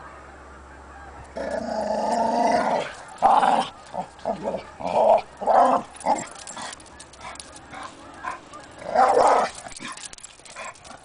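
Two dogs, a Chow Chow and a West Highland white terrier, growling as they play-fight: one long growl starting about a second and a half in, then a string of short growls, and another burst near the end.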